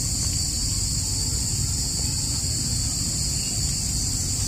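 Steady outdoor ambience: a constant high-pitched insect drone over a low rumble of wind on the microphone.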